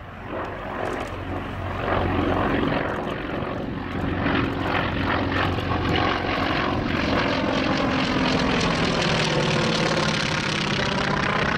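North American T-28C Trojan's Wright Cyclone nine-cylinder radial engine and propeller running hard in a display flypast. It grows louder over the first couple of seconds, then holds steady, and its pitch sinks in the second half as the aircraft passes.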